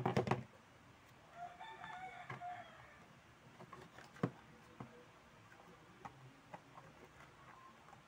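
A screwdriver clatters down onto a workbench, then a rooster crows once in the background for about a second and a half. After that come a sharp click and a few light clicks as a plastic fan switch housing is handled.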